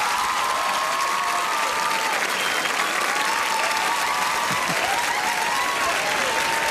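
Large studio audience applauding after a song ends, with cheering voices rising above the clapping.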